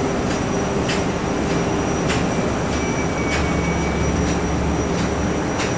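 Steady machinery noise of a shale gas drilling rig's generators and pumps, with a constant hum and a thin high whine, and footsteps knocking on the rig's metal stairs every second or so.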